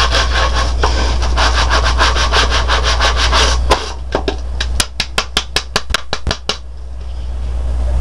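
A stiff-bristled brush scrubbing back and forth over the ribbed plastic needle bed of a Bond Ultimate Sweater Machine, in rapid rasping strokes. Just under four seconds in the scrubbing breaks off. About a second later comes a short run of about nine sharper, separate strokes, and then it goes quiet.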